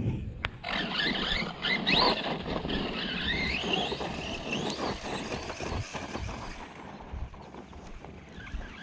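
Brushless electric motor of an Arrma Outcast 4S V2 RC truck whining up and down in pitch as the throttle is worked, with tyres churning over the ground. The whine thins out after about six and a half seconds.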